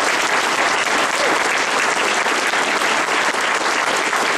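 Crowd applauding, dense and steady.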